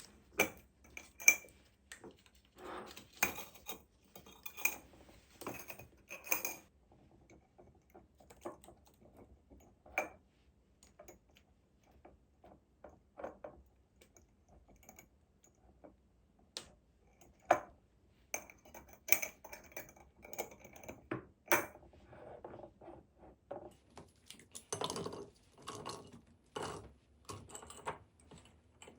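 Irregular clinks, clicks and knocks of containers being handled and set down, some ringing briefly like glass or hard plastic. The handling is busiest in the first seven seconds, around 17 to 22 seconds, and again near the end.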